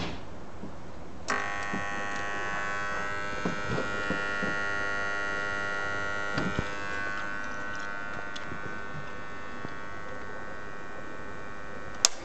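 A click about a second in as the homemade UPS inverter is switched on, then its steady electric buzz with a high whine. A sharp click near the end.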